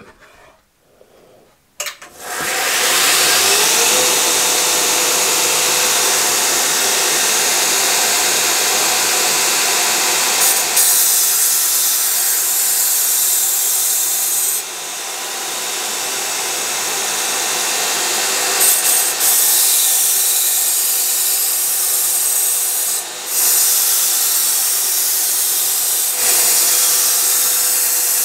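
Belt grinder with a partially worn 120-grit belt grinding the steel edge of a Shun cleaver in full-length passes to take out edge chips: a steady, hissing grind that starts about two seconds in and eases briefly a couple of times between passes.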